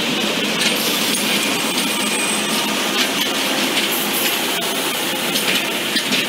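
Plasser & Theurer track maintenance machine moving along the rails: a steady mechanical rattle with many small metallic clinks.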